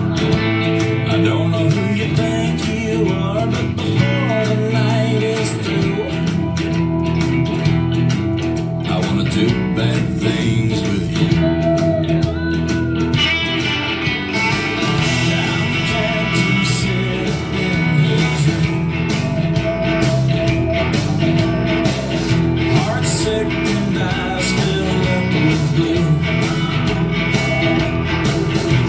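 A bluesy, country-tinged rock song led by electric guitar, playing steadily.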